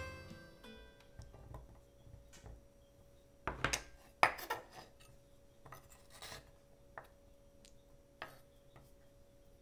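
Kitchen knife and glass bowl clinking and knocking on a wooden cutting board as candied chestnuts are handled, with a cluster of louder clatters about three and a half to four and a half seconds in. Lighter scattered taps follow, the last as the knife starts cutting the chestnuts.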